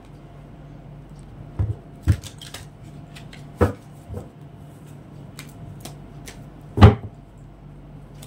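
Oracle cards being laid out and handled on a cloth-covered table: a handful of sharp taps and knocks a second or two apart, the loudest a little before the end, over a low steady hum.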